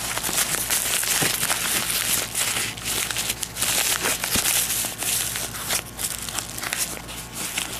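Paper mailing envelope being torn and pulled open by hand, an irregular crinkling and rustling with sharp little crackles throughout.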